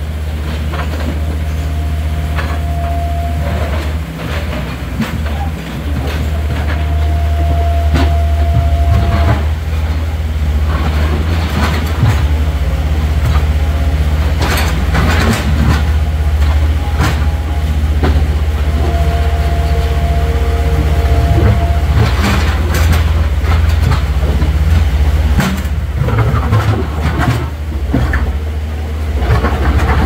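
Diesel engines of a Komatsu PC130 and a Hitachi excavator running under load with a steady low rumble. A hydraulic whine comes in three times for a few seconds each, and the steel bucket knocks and scrapes against a large boulder. Rushing river water runs underneath.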